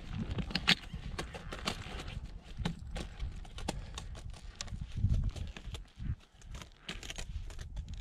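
Steps crunching and clicking on snow, with irregular sharp clicks several times a second as skis and poles move, and wind buffeting the microphone in low rumbles that swell about five seconds in.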